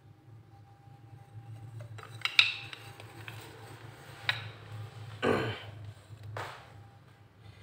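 Metal grafting knives clinking and clattering as they are handled and set down: a few sharp clinks and one longer scrape about five seconds in, over a steady low hum.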